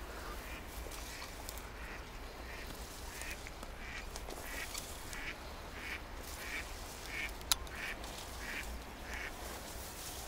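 An animal, perhaps a bird, calling over and over in short calls, about two a second. A single sharp click comes about seven and a half seconds in.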